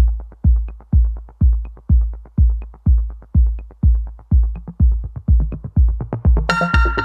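Electronic background music: a steady bass kick drum at about two beats a second with light clicks, joined by a synth line near the end.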